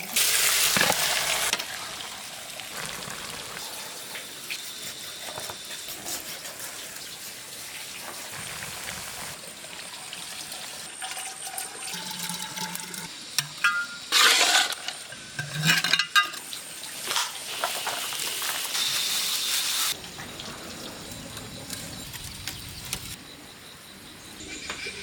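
Kitchen work with water: splashing and sloshing, with scattered knocks and a few louder bursts.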